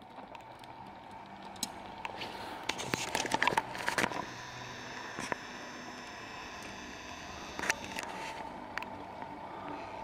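Mountain bikes riding past on the race course: tyres crunching over the ground and bike drivetrains rattling, with scattered sharp clicks and a busier clatter a few seconds in.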